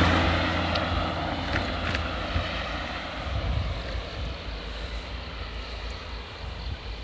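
A car passing the bicycle, its noise fading over the first couple of seconds, then steady wind on the microphone and low road rumble as the city bicycle rolls along.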